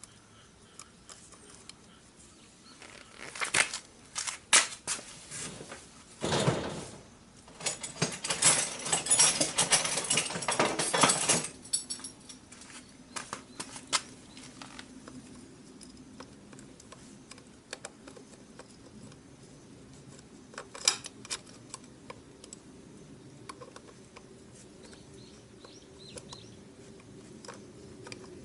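Gloved hands working a motorcycle's rear drive chain and master-link clip at the sprocket: a few sharp metallic clicks, then about five seconds of dense rattling and rubbing. After that only scattered faint clicks.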